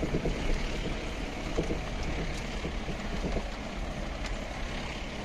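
A vehicle driving along a rough dirt forest track, heard from inside the cab: steady engine and road noise with scattered short knocks.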